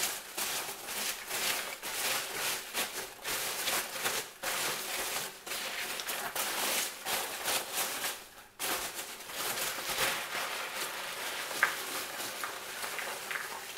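Packing material rustling and crinkling as hands rummage through a parcel of orchids, with a short pause just before the middle.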